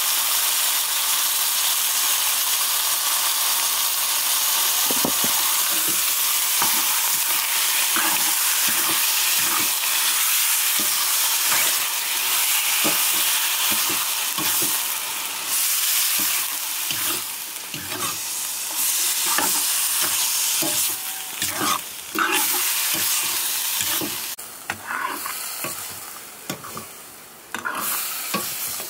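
Meat sizzling and frying in a blackened wok over a wood fire, with a metal ladle stirring and scraping against the pan again and again. The sizzle drops lower and becomes uneven in the last few seconds.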